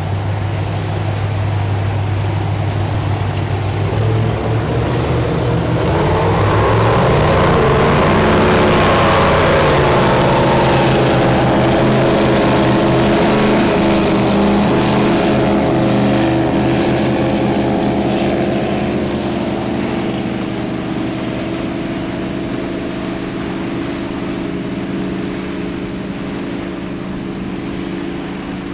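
Formula speedboat's engine running at speed as the boat accelerates past: the engine note climbs in pitch and grows louder a few seconds in, holds steady, then slowly fades as the boat pulls away. A rushing hiss of spray and wake rides along with it.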